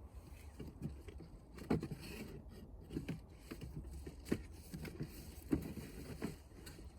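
Wood bonfire: irregular cracks and knocks from burning and shifting wood over a low, steady rumble.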